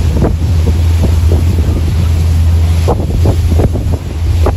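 A boat's engine running at speed, a steady low drone, with wind buffeting the microphone and waves splashing against the hull. The drone eases a little about three seconds in.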